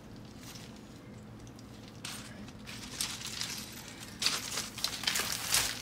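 Footsteps crunching and shifting on loose river-rock gravel, mixed with rustling handling sounds. They come as irregular scattered crunches starting about two seconds in and growing louder after three seconds, over a quiet low background before that.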